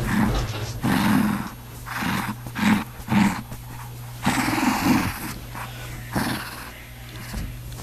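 Shih Tzu puppy growling in a string of short, low growls while it mouths a blanket and is played with by hand.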